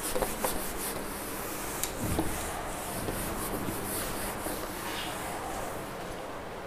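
A cloth wiping marker off a whiteboard in repeated rubbing strokes, which weaken near the end.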